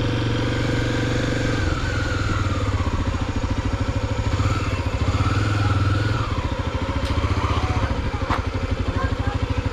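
Honda XR250 Tornado's single-cylinder four-stroke engine running at low revs. It is steady at first, then takes on a distinct pulsing beat from about two seconds in.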